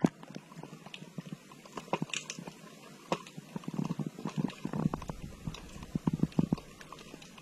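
Irregular clicks, taps and crunching knocks picked up by a submerged camera, muffled and close, growing denser in the second half with a low rumble joining about five seconds in.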